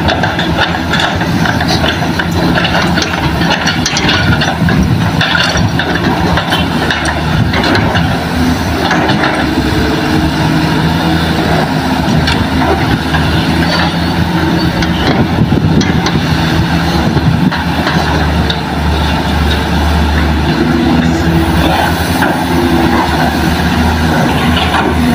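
Diesel engines of hydraulic excavators and loaded dump trucks running steadily, the nearest a Kobelco excavator working close by, with scattered knocks.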